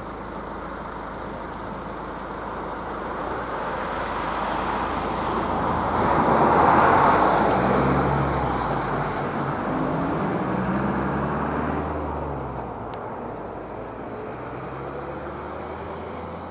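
A road vehicle driving past out of view: engine and tyre noise swells, loudest about seven seconds in, with the engine note shifting in pitch, then fades away.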